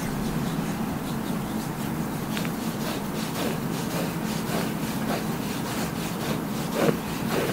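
Hands kneading and rubbing the skin of a thigh during a massage: short rubbing strokes about twice a second, starting a couple of seconds in, the loudest one near the end.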